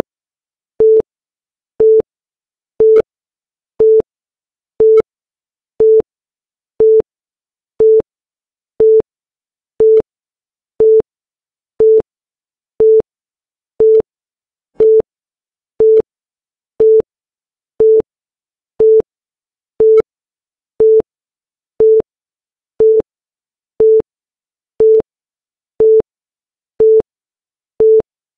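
Short electronic beep, a single low-pitched tone, repeating exactly once a second as the chronometer counts off seconds.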